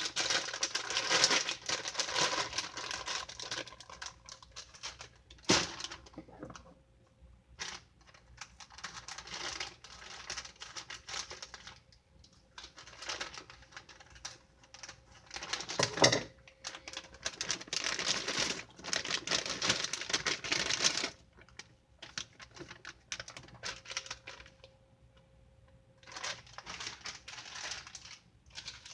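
Plastic packaging crinkling and rustling in repeated bursts as broccoli is handled, with a sharp knock about five and a half seconds in and another about sixteen seconds in.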